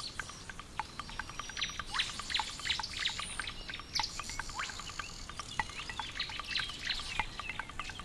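Outdoor tropical ambience of many small birds chirping: a dense, overlapping run of short, sharp chirps, several each second.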